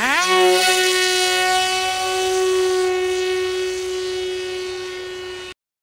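Electric motor and propeller of a small foam flying wing whining up to full throttle, then holding one steady pitch while slowly fading. The sound cuts off abruptly near the end.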